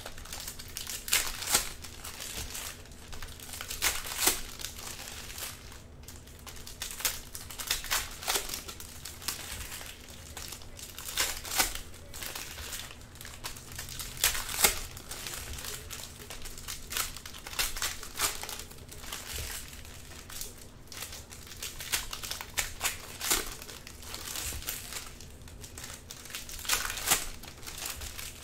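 Foil trading-card pack wrappers from 2013 Panini Prizm football crinkling in the hands as packs are torn open and the cards handled. The crackles come irregularly, with a few sharper, louder ones here and there.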